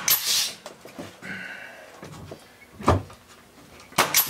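Pneumatic nail gun firing into wood: three sharp shots, the first at the start with a hiss of air, another just under three seconds in, and a third near the end.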